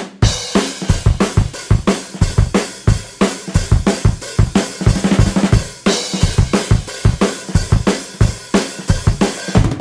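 Background music: a drum kit playing a fast, steady beat with kick, snare and cymbals.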